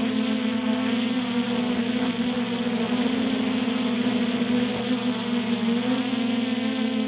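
Multirotor drone's propellers buzzing steadily while it hovers, with a strong hum. The pitch dips slightly and comes back up about six seconds in as the motors adjust.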